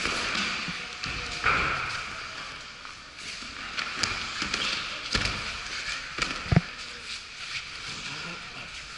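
Bodies hitting gym mats during ju-jitsu throws and grappling: several dull thuds and slaps, the loudest about two-thirds of the way through, in an echoing hall.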